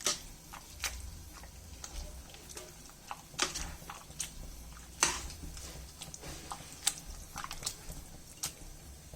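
Boiled vegetables being mashed by hand in a pressure cooker: soft squishing strokes at an uneven pace, with a dozen or so sharp clicks and knocks of the utensil against the pot.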